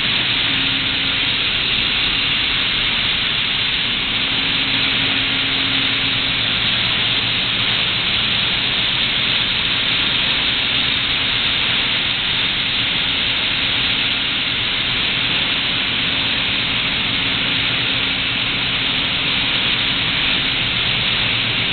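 Steam power plant boiler room running: a loud, steady rushing hiss with a low hum beneath and a faint tone that comes and goes.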